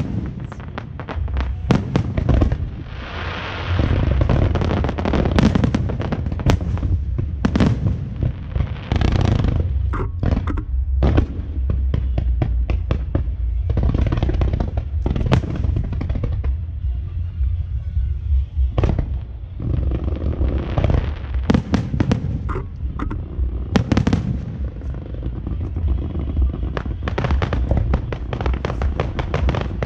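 Fireworks show going off continuously: a rapid run of sharp bangs and cracks with several hissing, crackling stretches of a second or two in between.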